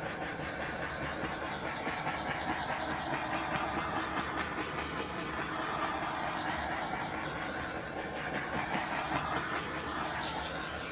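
Handheld butane torch flame hissing steadily as it is swept over wet acrylic pour paint to pop the air bubbles in it; it cuts off suddenly at the very end.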